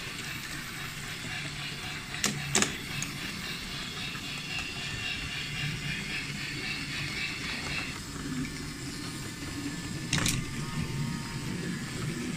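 Small electric motors of battery-powered wooden toy trains whirring steadily, with a couple of sharp clicks about two seconds in and another one near the end.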